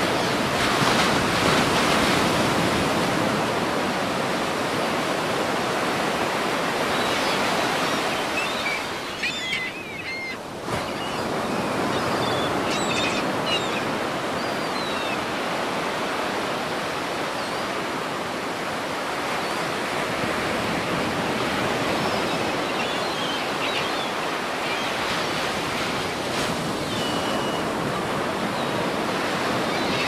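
Ocean waves washing steadily, with a few short high chirps over them now and then.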